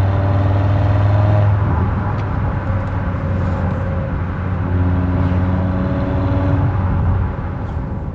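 Audi RS Q3's turbocharged five-cylinder running at part throttle with its exhaust flaps held open by a flap-control module, giving a deep, bassy exhaust drone. The note eases off about a second and a half in, builds again around four and a half seconds, and fades near the end.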